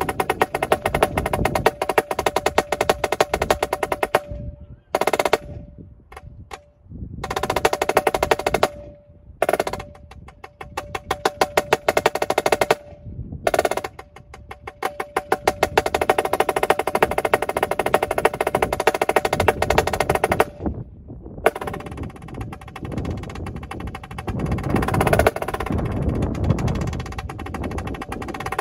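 Yamaha marching snare drum played solo with sticks: fast runs of strokes broken by several short rests, then denser, continuous rolling through the last several seconds.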